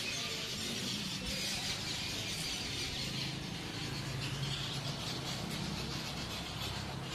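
Road traffic noise: a steady mix of engine hum and road noise from vehicles moving nearby.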